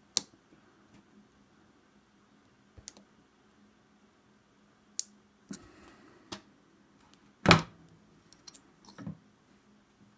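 Lock pick and tension wrench working a double-sided wafer lock: scattered small metallic clicks and faint scraping, with one louder click a bit past the middle.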